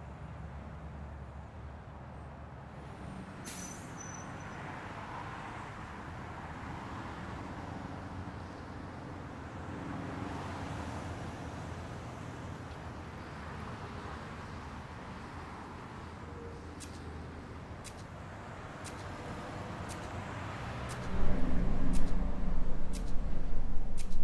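City street traffic noise, a steady hum of passing vehicles. About two-thirds of the way in, sharp ticks begin at a steady pace of roughly three every two seconds. Near the end a loud, low drone comes in on top.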